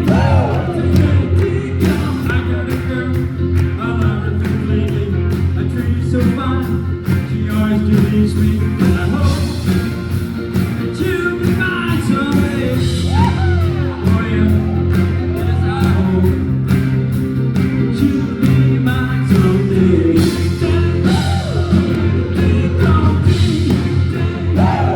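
Live rock band playing a song with singing and a steady drum beat.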